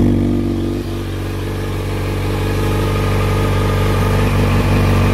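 1993 Honda CBR900RR's inline-four engine idling steadily, warmed up with the choke off.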